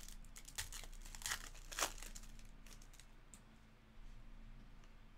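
Foil wrapper of a Topps Chrome baseball card pack being torn open and crinkled. A few short sharp rustles come in the first two seconds, then quieter handling.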